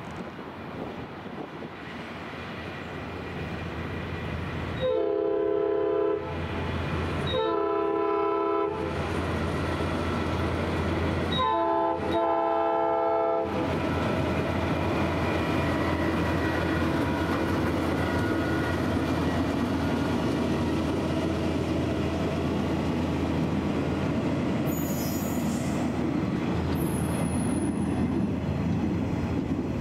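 Nathan P3 multi-chime air horn on a self-propelled locomotive crane sounding two long blasts, then a short and a long, the grade-crossing signal. Steady rumble and clatter of the crane and its flatcar rolling past on the rails follow, with brief high-pitched squeals near the end.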